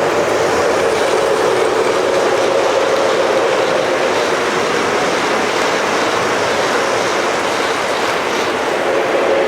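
Model trains running on the layout: a steady rattle of small wheels on track, with a motor hum that fades about halfway through and comes back near the end.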